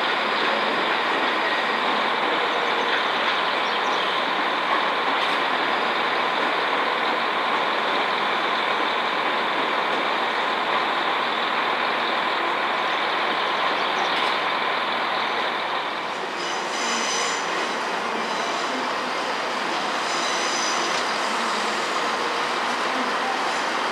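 A passenger train in a railway station, a steady running noise. From about sixteen seconds in, high-pitched tones come and go in short patches over it.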